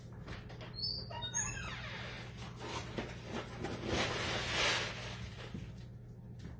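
A few short high squeaks about a second in, then the rustling hiss of dry jasmine rice grains as a measuring cup scoops into a large bag of rice, loudest about four and a half seconds in. A steady low hum runs underneath.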